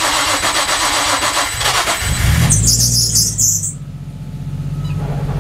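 Nissan 180SX engine being cranked on the starter for about two seconds, then catching, rising briefly and settling into a steady idle, with a brief high-pitched noise just after it fires. This is the first start after the fuel tank was refitted and the fuel pump primed.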